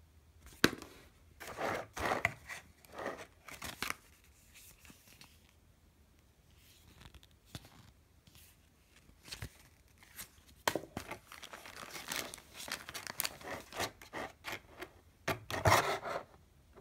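Paper leaflets and clear plastic clamshell packaging rustling and crinkling as they are handled, in short irregular bursts. There is a quiet stretch in the middle, and the handling is busiest near the end.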